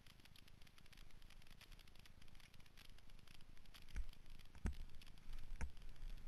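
Rockrider 6.3 mountain bike rolling down a leafy dirt forest trail, heard faintly through a helmet-mounted camera: light rattling and ticking, then, from about four seconds in, three sharp knocks with dull thumps as it hits bumps.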